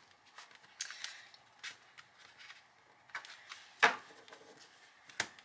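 Stack of cardstock journaling cards being handled and shuffled: light paper rustles and soft clicks, with a sharper tap a little before four seconds in and another near the end.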